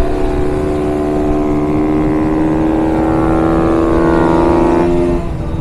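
Onboard sound of a minibike's small engine held at high revs, its pitch climbing slowly as the bike accelerates, then the throttle shut about five seconds in so the note drops away. Wind rushes steadily on the microphone underneath.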